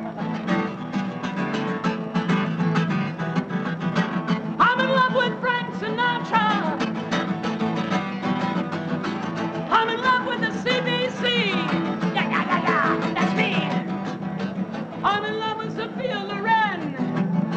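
A song with a fast, steadily strummed guitar; a voice comes in about four seconds in and sings in three phrases over it.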